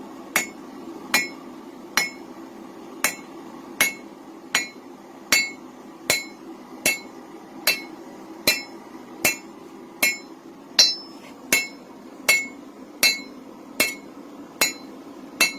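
Hand hammer striking a hot railroad spike on an anvil, forging out a knife blade: about twenty steady blows, one every 0.8 seconds or so, each with a short metallic ring. A steady low hum runs underneath.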